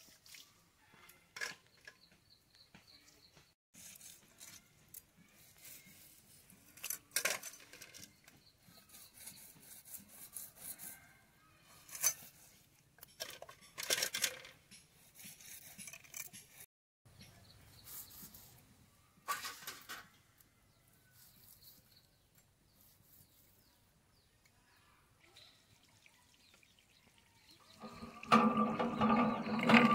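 Small river fish being cleaned on a boti blade over a wet stone slab: scattered wet clicks, scrapes and a few sharper knocks, with quiet gaps between. Near the end a loud rush of water splashes onto the stone.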